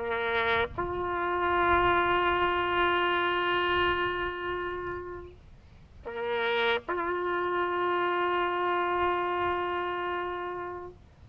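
A solo brass instrument sounding a slow ceremonial call: a short higher note rising into a long held lower note, the phrase played twice.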